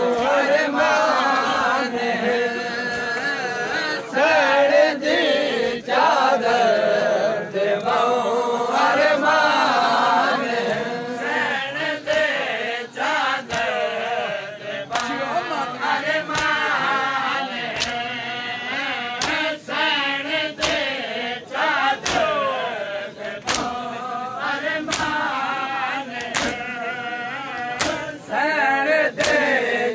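Crowd of men chanting a Shia lament (nauha) for the martyrs of Karbala in unison, with sharp slaps of chest-beating (matam) about once a second.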